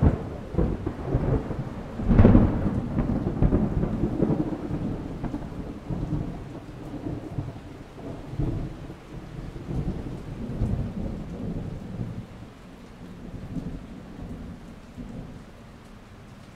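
A thunderclap: a sudden crack, then a louder peak about two seconds in, followed by a long rolling rumble that slowly fades away.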